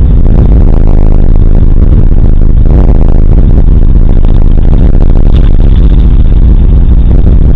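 Continuous low rumble of a thunderstorm, so loud that the recording is overloaded and distorted throughout.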